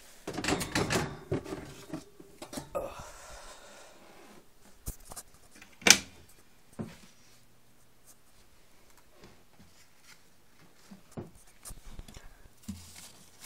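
Rustling, knocks and clicks from handling plastic tubs and opening a gecko enclosure. There is a burst of handling noise at the start and one sharp click about six seconds in, which is the loudest sound.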